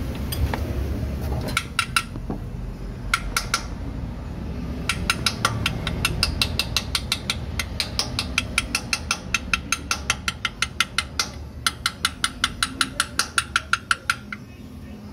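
Hand ratchet wrench clicking as it works a bolt on the crankshaft's rear flange: a few short runs of clicks, then two long runs of quick, even clicks, about six to eight a second.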